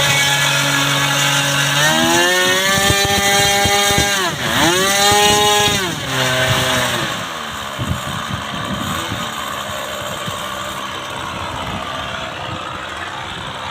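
O.S. Max .55 two-stroke glow engine of an RC model airplane running at full throttle in flight. Its pitch steps up about two seconds in, swoops down and back up as the plane passes, then drops again. In the second half the engine continues more faintly.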